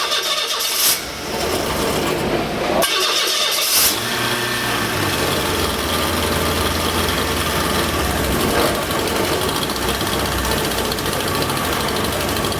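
Freshly rebuilt GM 2.2-litre inline-four being cranked by its starter in two short bursts, then catching about four seconds in and running steadily on its first start after the rebuild.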